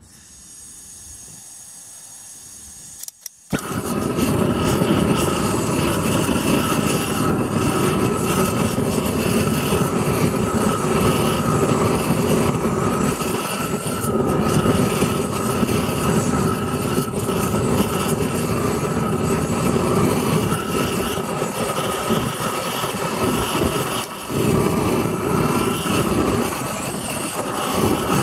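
Fire burning: a faint hiss, then about three and a half seconds in a sudden loud rush of flame that keeps going steadily, dipping for a moment near the end.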